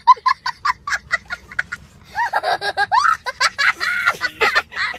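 A young child laughing hysterically: a quick run of short, high-pitched bursts of laughter, then longer, higher squealing peals.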